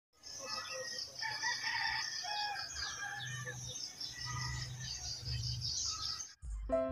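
Rooster crowing among many small birds chirping. The bird sounds cut off near the end, and steady music notes start.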